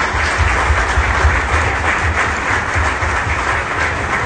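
Audience applauding: a dense, steady clatter of many hands clapping, with a low rumble underneath. It starts abruptly.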